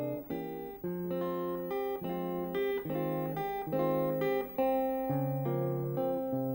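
Acoustic guitar picking single notes and chords in an instrumental passage of a song, a new note about every half second, with no voice.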